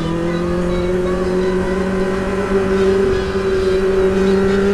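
Kawasaki Z800's inline-four engine running steadily as the motorcycle rides along at low, even revs. The pitch rises a little in the first second, then holds.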